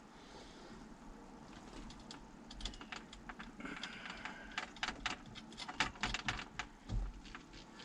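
A run of irregular light clicks and taps, with a brief scrape about four seconds in, from hands handling parts and fasteners on the car door during the mirror swap.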